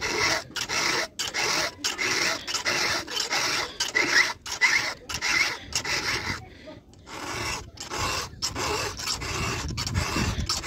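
Round chainsaw file rasping across the cutters of a Stihl MS382 chainsaw chain in short repeated strokes, about two a second, with a brief pause about two-thirds of the way through.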